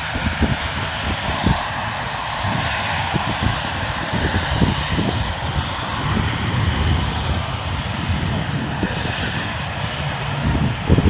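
Airliner engines giving a steady rushing noise as a plane is near, with gusts of wind buffeting the microphone.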